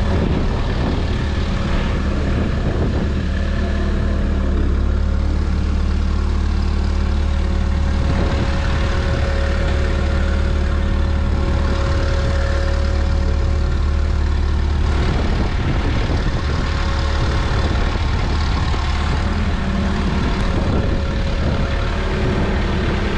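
An engine running steadily at a constant pace, with a steady whine over its low rumble that grows stronger from about five to fifteen seconds in.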